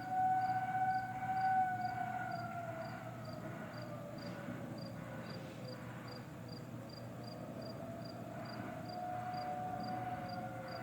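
Federal Signal 2001-130 outdoor warning sirens sounding during a test, several overlapping at once. Their sustained tones swell louder twice near the start and then drift slowly down and back up in pitch. Crickets chirp steadily, about three times a second, underneath.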